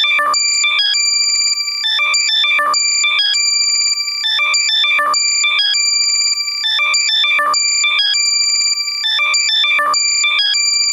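Loud, compressed electronic locator alert for finding a lost earbud: a held high beep with ringing overtones alternating with quick chirping sweeps, the pattern repeating about every two and a half seconds.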